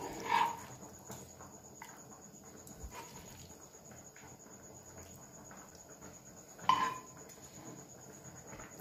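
A spoon scraping against a non-stick frying pan as cooked prawn fry is scooped out: two short scrapes, about half a second in and about seven seconds in, with a few faint clicks between.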